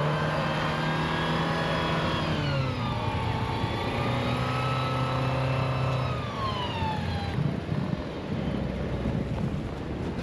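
Car engine revving hard as a car stuck in deep snow tries to pull out. The revs hold high, drop about two and a half seconds in, climb back and hold, then fall away around seven seconds in, leaving a rougher noise.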